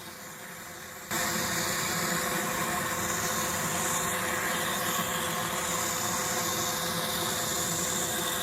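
Cordless vacuum cleaner, fitted with its flexible hose and brush, switching on about a second in and then running steadily: a rushing of air with a steady motor tone.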